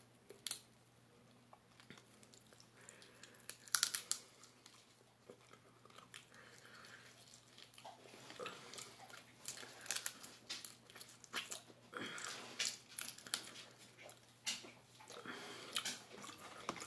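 Faint, irregular crackling and snapping of cooked lobster shell as the small legs are pulled off and picked for meat, with soft chewing. The clicks come in scattered clusters, one about four seconds in and more often in the second half.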